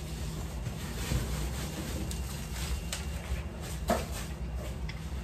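Bubble wrap crinkling as a wrapped item is handled and lifted out of a cardboard box, with a few light knocks and clicks, the loudest about four seconds in.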